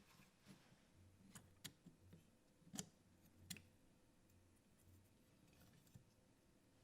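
Near silence with a few faint, sharp clicks of small metal parts being handled, as screws and a metal plate come off the cassette mechanism.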